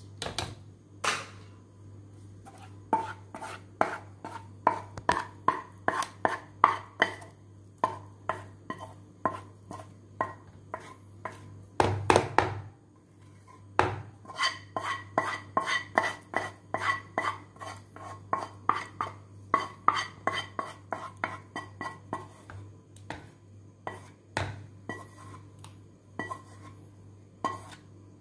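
Wire whisk beating a batter of egg, milk and semolina in a plastic bowl, its wires tapping the bowl about three times a second. There is a louder, longer sound about twelve seconds in, as more of the semolina mixture goes in.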